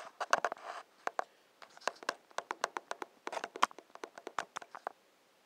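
Close handling noise: a run of irregular sharp clicks and scratches that stops about five seconds in.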